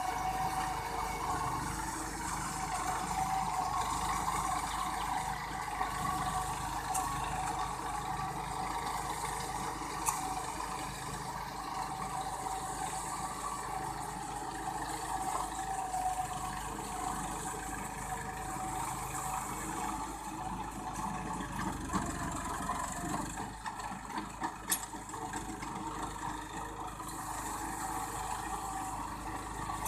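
New Holland 4510 tractor's diesel engine running steadily while ploughing a paddy field, with a couple of brief sharp clicks about a third of the way in and near the end.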